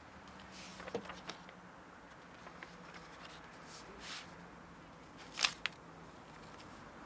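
Small handling noises as a person moves things about on a shelf: a few light clicks and knocks about a second in, a soft rustle around four seconds, and a louder brief noise with a click just after it about five and a half seconds in, over a faint steady hum.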